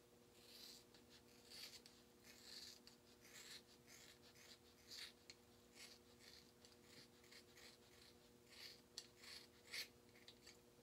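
Scissors cutting through a thick dreadlock at the scalp: a faint, irregular string of short, crisp snips and crunches, over a faint steady hum.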